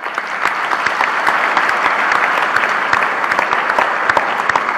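Audience applauding in a church, many hands clapping steadily. It begins suddenly and holds through.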